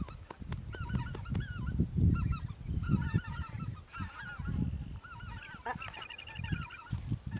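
A flock of greater white-fronted geese calling as they fly over: many short, high calls that rise and fall in pitch, overlapping throughout. Irregular low rumbling runs underneath and is at times louder than the calls.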